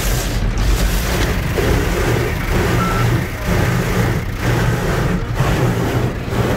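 Automatic car wash heard from inside the car: loud spraying water and rotating cloth brushes sweeping against the glass and body, over a low pulsing machinery drone.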